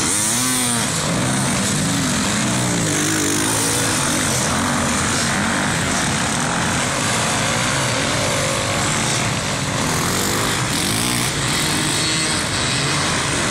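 Motocross bike engines revving up and down as the bikes ride the track, their pitch rising and falling.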